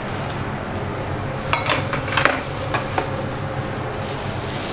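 A few light clinks of kitchenware against a mixing bowl, about one and a half to three seconds in, over a steady hiss, as mustard oil is added to minced meat in the bowl.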